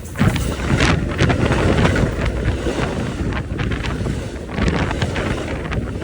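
A passenger train rolling past, its rumble mixed with heavy wind buffeting on the microphone in irregular gusts.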